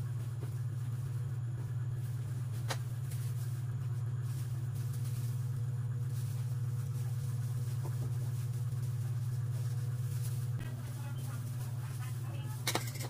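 Steady low mechanical hum, with a few short clicks of handling at the cutting board, one about three seconds in and several near the end.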